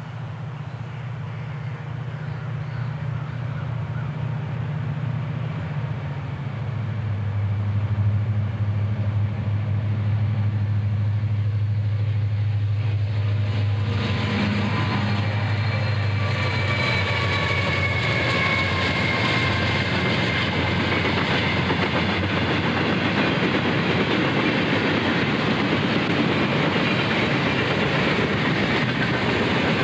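Conrail diesel-electric freight locomotives approaching and passing, their engines running with a low steady note that grows louder, then a train of tank cars rolling by with a loud, steady noise of wheels on rail from about halfway through.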